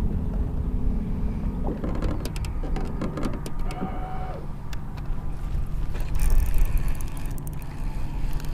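Wind rumbling on the microphone, with a faint steady electric whine and a few light clicks.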